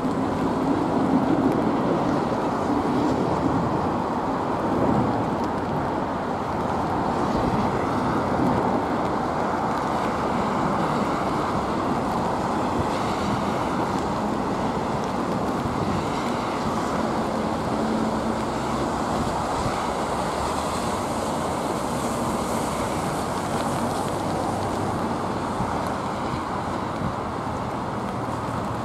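Gusty storm wind blowing over the microphone, mixed with the steady rushing of a twin-engine jet airliner's engines as it comes in to land in a strong crosswind.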